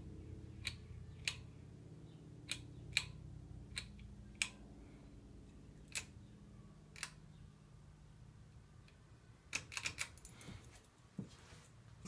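Faint sharp clicks at irregular intervals over a low hum that slowly dies away, then a quick run of clicks about ten seconds in as the Encon Monarch four-blade ceiling fan is switched on and starts to turn.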